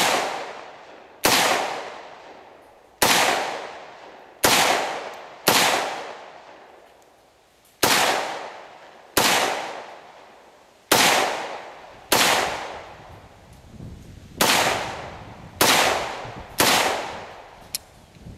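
Rock River Arms LAR-47 X-1, an AR-style semi-automatic rifle chambered in 7.62x39, fired in unhurried single shots: about a dozen sharp cracks one to two seconds apart, each dying away over about a second.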